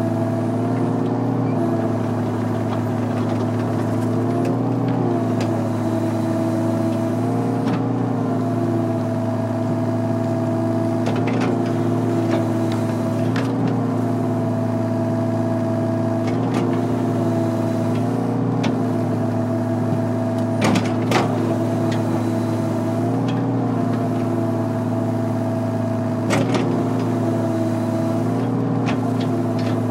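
Volvo excavator's diesel engine running steadily, heard from inside the cab, its pitch sagging and recovering briefly every few seconds as the hydraulics take load. A couple of sharp knocks in the second half.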